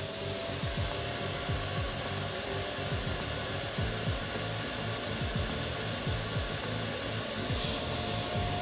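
Vacuum cleaner running steadily with a faint whine over the rush of air. Its hose is sucking the air out through the valve of a plastic vacuum storage bag, compressing the bedding inside flat.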